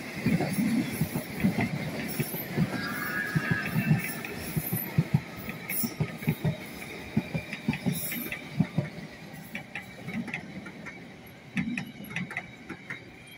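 London Underground S-stock train running past and moving away, its wheels clacking irregularly over rail joints above a steady rumble that fades toward the end.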